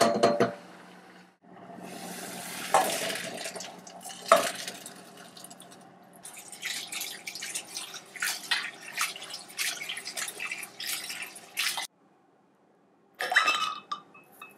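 Boiled chickpeas and their cooking water poured from a metal pot into an enamel colander, with a couple of sharp clinks of pot on enamel. Then tap water runs into the colander while a hand rubs the chickpeas, a busy splashing and rattling that cuts off suddenly about twelve seconds in, followed by a brief clatter.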